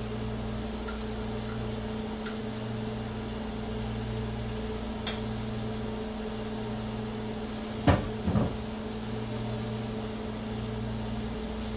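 Kitchen handling noises over a steady low electrical hum: a few light clicks, then two sharp knocks about eight seconds in, the loudest sounds here.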